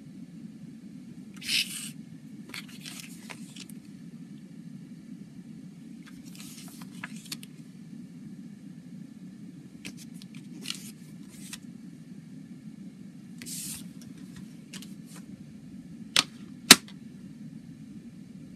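CD booklet paper rustling in short bursts as it is unfolded and its pages turned by hand, over a steady low hum. Near the end come two sharp clicks of the plastic CD jewel case, the second louder.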